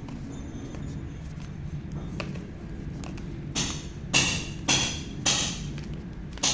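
Hands stirring and squishing wet clay slime in water, with a steady low hum behind. About halfway in come five short wet squelches, roughly half a second apart.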